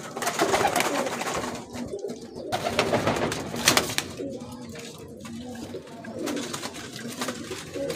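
Domestic pigeons cooing in a loft.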